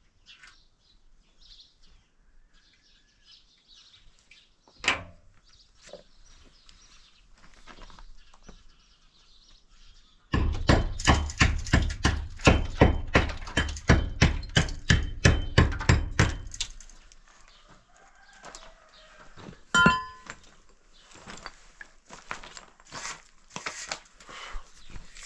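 A rapid run of sharp knocks, about four a second, lasting about six seconds from about ten seconds in, with single thuds before and after it. Birds chirp faintly.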